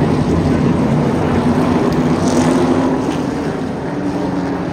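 Super late model race cars' V8 engines running together on the track, a dense, loud engine drone that eases off slightly about three seconds in.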